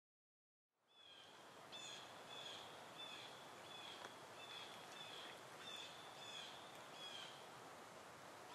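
Silence for about a second, then faint outdoor ambience with a bird calling over and over, short high chirps about twice a second.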